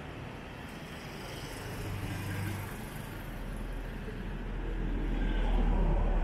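Motorcycle engine of a motorcycle-and-sidecar tricycle running while riding, with road rumble. The low rumble swells louder in the last couple of seconds.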